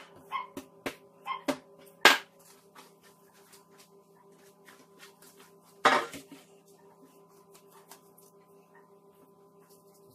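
Ball of bread-like dough pressed and slapped against a wooden table in several sharp thumps over the first two seconds, then a metal baking tray set down on the table with a loud knock about six seconds in. A steady hum runs underneath.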